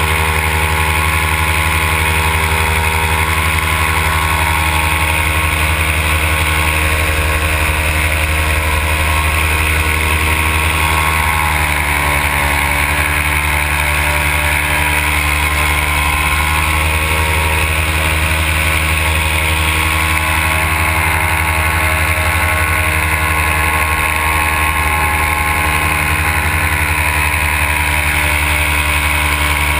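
Simonini two-stroke paramotor engine and propeller running steadily at cruise in flight. The engine note drops a little about twelve seconds in, then holds.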